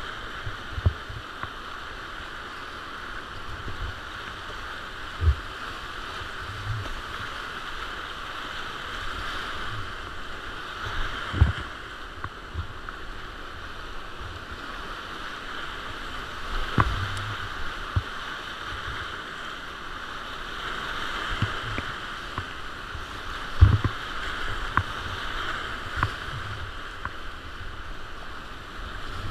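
Whitewater rapids rushing steadily around a kayak running down a fast Alpine river. Dull thumps of water and paddle against the kayak's hull come at irregular intervals.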